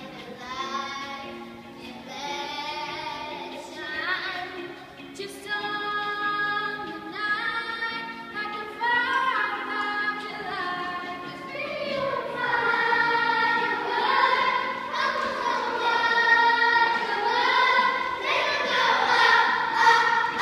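A group of children singing along to a pop song over its backing track, getting louder in the second half.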